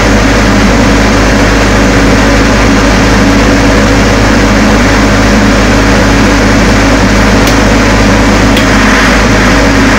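22 kVA Able diesel generator running steadily and loud, close by, after its automatic start on a simulated mains failure, while the transfer switch counts down to put it on load.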